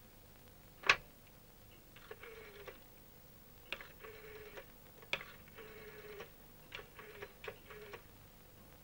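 A rotary telephone: a sharp click about a second in as the receiver is lifted, then the dial turned and let run back several times, each return a short whirr of quick clicks, as a number is dialled.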